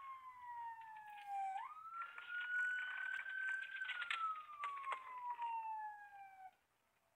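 Police car siren wailing. Its pitch slides slowly down, jumps back up about a second and a half in, rises slowly, then falls again before cutting off about six and a half seconds in. A few short knocks and rattles come near the middle.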